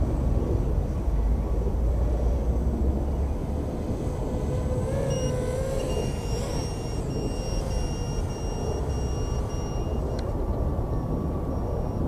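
4-inch FPV racing quadcopter's brushless motors and propellers buzzing in flight, the pitch wavering up and down with throttle over steady wind-like noise.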